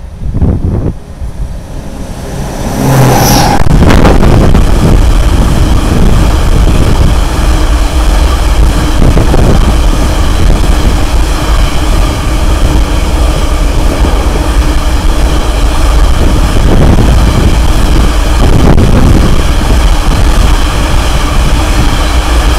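A diesel freight locomotive comes up and passes close by about three seconds in. After it, a long string of loaded limestone hopper wagons rolls past with a steady heavy rumble of wheels on rail joints.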